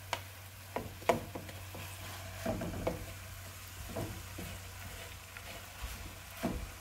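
Chopped callaloo tipped into a nonstick frying pan of okra and peppers and stirred with a wooden spatula, the vegetables sizzling lightly in coconut oil. Scattered sharp knocks of the spatula against the pan come every second or so.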